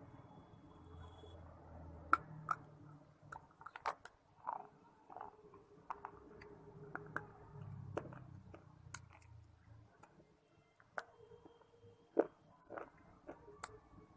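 A person biting and chewing hard, dry pieces of clay and shale, with irregular sharp cracks and crunches; the loudest cracks come about two seconds in and about twelve seconds in.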